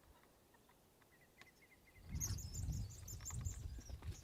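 Small birds chirping; about two seconds in, a quick run of high, rapid chirps starts as two birds chase each other overhead, which sets the chickens running for cover. A low rumble comes in at the same moment.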